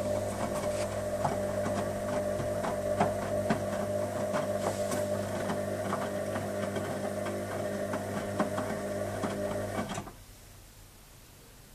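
Hoover Special Edition 1300 washing machine's wash action: its motor turns the drum with a steady hum and irregular clicks and knocks. About ten seconds in, the motor stops abruptly, as in the pause between tumbles.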